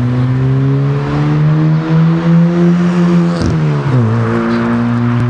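Ford Fiesta Mk6 accelerating past, its exhaust note climbing slowly, then dropping in pitch as it goes by about three and a half seconds in, and running on steadily as it pulls away.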